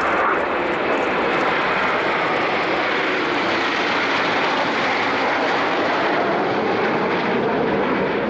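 A formation of Aermacchi MB-339 jet trainers flying past, their Rolls-Royce Viper turbojets making a steady, even jet noise.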